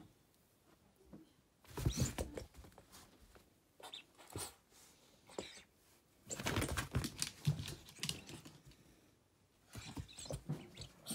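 A Shiba Inu's paws and claws pattering and scrabbling on the floor as it plays, in four short flurries of quick clicks and rustles with quiet between.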